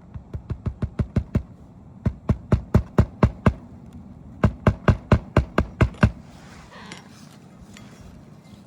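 Hammer driving roofing nails into asphalt shingles: three quick runs of blows, about five a second, the first run getting louder as it goes.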